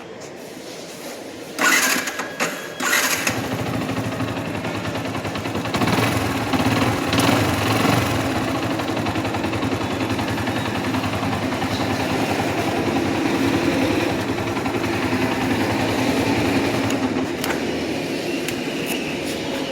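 Yamaha R15 V2's single-cylinder engine running with a rapid mechanical clatter, the engine noise this bike has as a problem. Two loud short bursts come about two and three seconds in, then the engine runs steadily.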